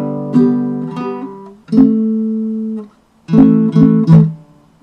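Sound-sation baritone ukulele strummed in chords: two strums, a chord left ringing for about a second and then damped, a short pause, then three quick strums near the end.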